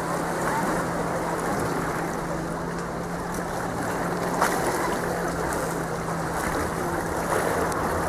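Small sea waves washing against concrete breakwater blocks, over a steady low hum. There is a single click about four and a half seconds in.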